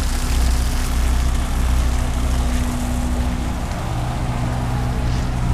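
The Ranger 85 sportfishing boat's engine running steadily under way, a low hum under a rush of wind and water noise. About two-thirds of the way through, the pitch of the hum shifts.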